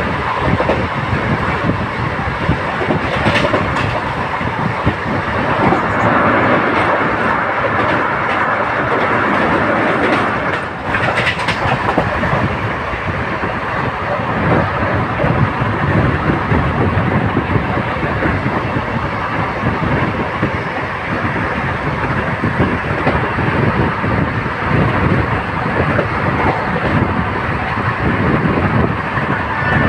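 Passenger train running at speed, heard from onboard: a steady rumble of wheels on rail with clickety-clack from the rail joints.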